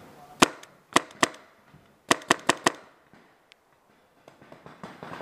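Paintball pistol firing seven sharp pops: a single shot, then two close together, then a quick run of four about two seconds in.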